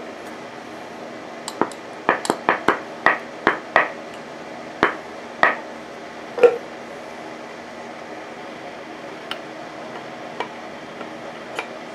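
Valve lifters clicking and clinking against the aluminum cylinder head as they are pushed by hand into their bores. About a dozen sharp clicks come in the first half, the loudest just past halfway, then a few faint ticks.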